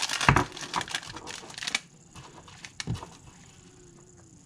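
Plastic packaging crinkling and clicking as a small fishing rig is handled and pulled from its bag, with one firm knock near the start. The handling dies down after about two seconds, leaving a few small clicks.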